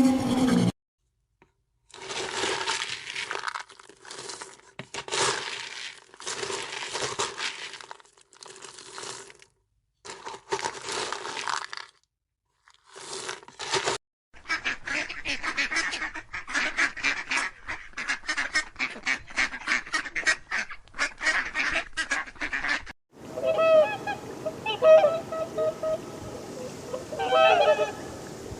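Animal calls in a series of short edited clips: rough noisy calls for the first half, then a fast run of short chattering pulses, and honking calls in the last few seconds.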